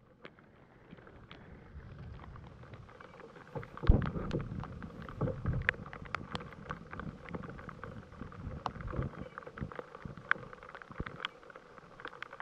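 Rain falling on a kayak and the lake: a steady hiss with many irregular sharp ticks of drops. Low thumps of handling or wind on the microphone come about four and five seconds in.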